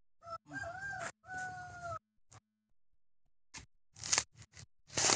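A rooster crows once, in two parts, over the first two seconds. Then, from about three and a half seconds in, a coconut husk is forced down onto a metal husking spike and torn, giving a run of crunching, tearing strokes that grow loudest near the end.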